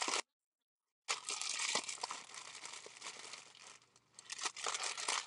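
Plastic bag of foam beads crinkling as it is squeezed and the beads are poured out. It is a continuous rustle with small clicks and starts about a second in, after a moment of dead silence.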